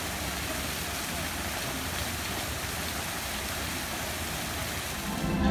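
Water jet from a fountain's mask spout splashing steadily into a basin. Music starts just at the end.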